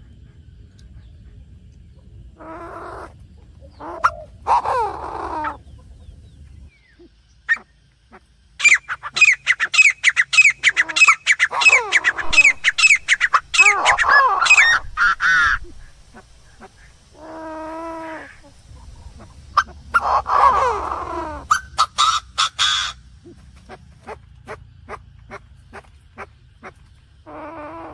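Chinese francolin calling: harsh, loud fowl-like calls, with long runs of fast, sharply repeated notes in the middle and shorter separate call notes between them.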